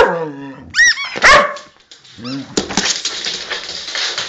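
Dog barking twice, with a rubber squeaky toy squeaking in between, then a stretch of rough scuffling noise.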